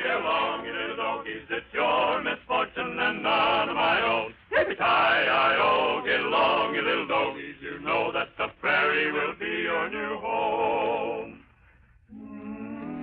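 Male voices singing in wavering, drawn-out phrases. About eleven and a half seconds in the singing stops, and after a short gap held instrumental music notes begin.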